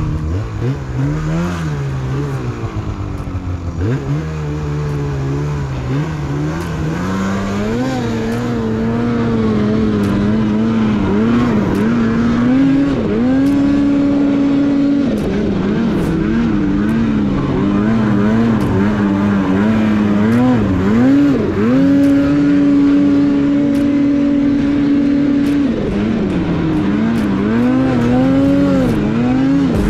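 Turbocharged 850 two-stroke engine of a Polaris Pro-RMK Patriot Boost snowmobile being ridden under throttle. The revs climb and fall again and again, holding a steady high pitch for a few seconds twice, about a third of the way in and again past the middle.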